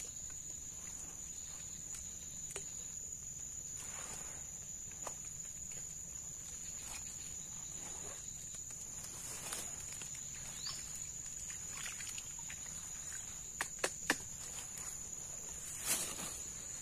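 An insect's steady high-pitched trill, one unbroken tone, with scattered faint clicks and taps and a few sharper clicks near the end.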